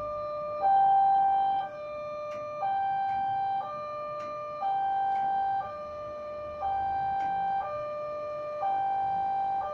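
Electronic warning alarm of a KAB-model railway level crossing, sounding a two-tone alternating signal that switches between a lower and a higher note about once a second. It is the crossing's warning that the barriers are closing for an approaching train.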